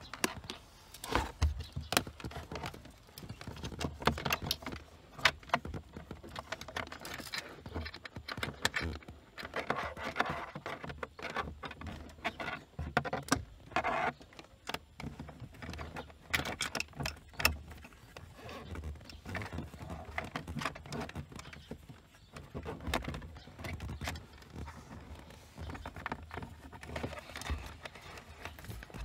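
Hands working in the open glovebox recess while a dash camera's USB cable is routed: irregular plastic clicks, knocks and rustling.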